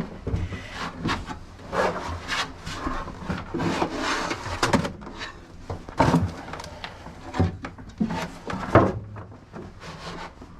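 Heavy isolation transformer box being shoved and slid into place against wood, with irregular scraping and several sharp knocks as it bumps the wooden surfaces.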